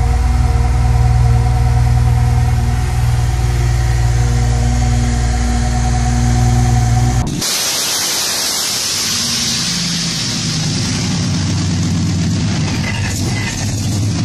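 An engine-swapped car's engine idling steadily with a deep, even note. About seven seconds in it cuts to a supercharged Corvette C2 V8 running, a loud hiss over a lower, unsteady engine note.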